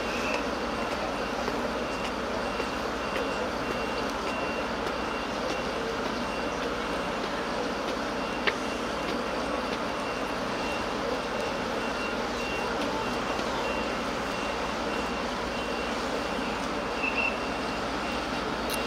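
Heavy recovery machinery running steadily, with a high-pitched backup alarm beeping over it and one sharp click about eight seconds in.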